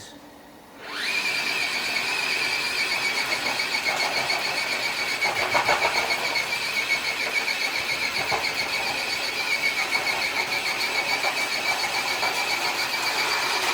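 HB Toys RC truck's electric motor and geared drivetrain whining steadily at a high pitch as it drags a weighted dead sled across concrete, starting about a second in.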